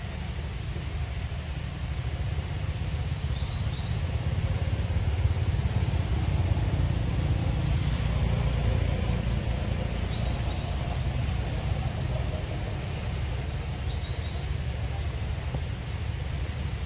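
Steady low rumble of wind buffeting the microphone, with a small bird giving a short high chirp three times.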